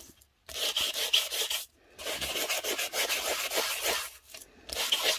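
A small sanding block rubbed in quick back-and-forth strokes over embossed, alcohol-ink-coloured cardstock, a dry scratchy scuffing that takes the ink off the raised embossed lines. It comes in three spells with two brief stops, about a third and four-fifths of the way through.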